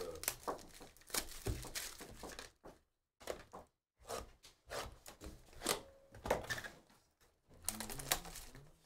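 Plastic wrapping crinkling and tearing, with short cardboard knocks, as a sealed trading-card box is unwrapped and opened by hand. The sound comes in quick irregular crackles, with a complete break about three seconds in.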